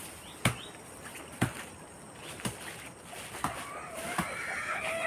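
Machete chopping into a palm trunk: five sharp blows about a second apart. Fowl calling starts in the last second or so.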